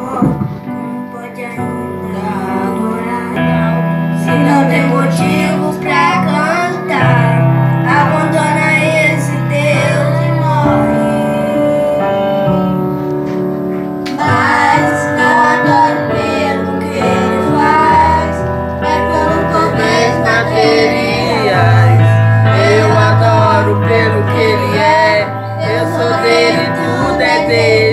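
A boy and a girl singing a gospel hymn into microphones, with instrumental accompaniment of sustained chords and a bass line changing every few seconds.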